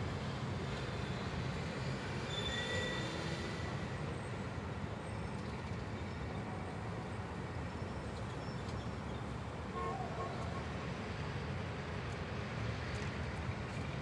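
Close-up city street traffic: a steady rumble of passing vehicles, with a few faint, brief high tones about two to three seconds in and again near ten seconds.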